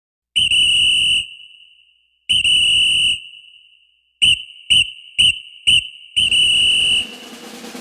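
A whistle blown in a pattern: two long blasts, four quick short ones, then a final long blast, each a single steady high tone.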